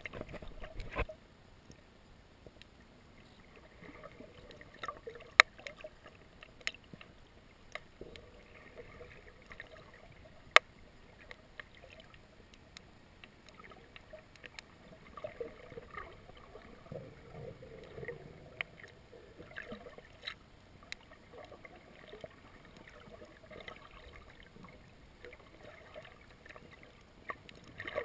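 Muffled underwater sound heard through a submerged camera: a faint wash of water with scattered sharp clicks and taps. There is a louder patch in the first second, and two strong clicks about five and ten seconds in.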